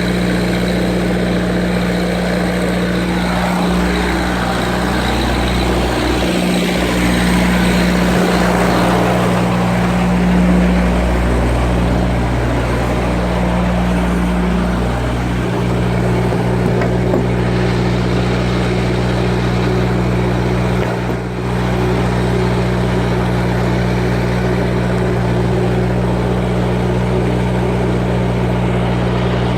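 Skid steer engine running steadily at working revs, with the pitch and level shifting and rising for a few seconds about a third of the way in, then settling back to an even note.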